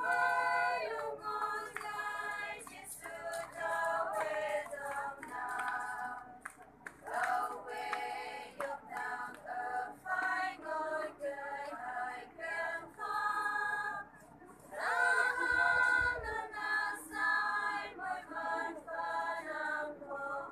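A small women's choir singing unaccompanied, in long phrases with brief pauses for breath about a third and two thirds of the way through.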